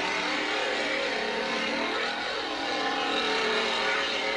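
Chainsaw engine revving up and down, played back through a television's speaker; its pitch swells and falls about two seconds in.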